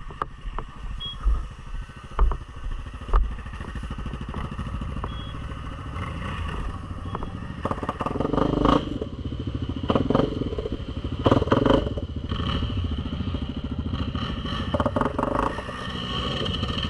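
ATV engine running, revved hard in several bursts as the quad tries to climb a track frozen underneath and struggles for grip on the ice. A few low thumps come in the first few seconds.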